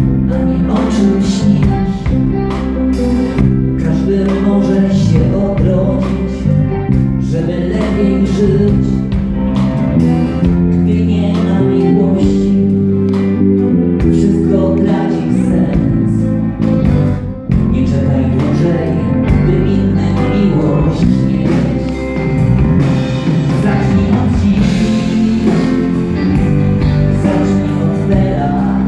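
Live pop-rock band playing loud: drum kit, electric guitar and keyboards, with a male lead singer.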